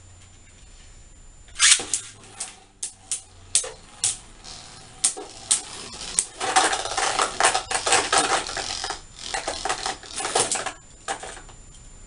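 Beyblade Burst spinning tops clashing in a plastic stadium. A sharp clack comes about one and a half seconds in, then scattered clicks, then a fast run of clattering collisions through the middle and latter part. It stops after a last hit near the end.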